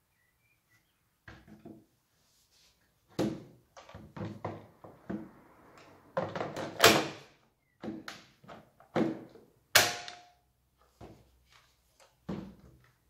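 Hard plastic knocks and thunks from a Husqvarna T540i XP cordless chainsaw being handled on a wooden workbench: its battery pack is worked in its slot and the saw is turned and set down. There are a dozen or so separate knocks, the loudest about 7 and 10 seconds in.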